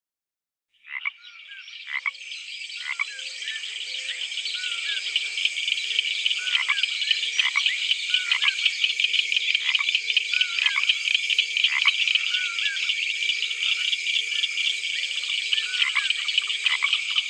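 A frog chorus that fades in about a second in: a dense, steady high trilling with repeated short falling chirps over it.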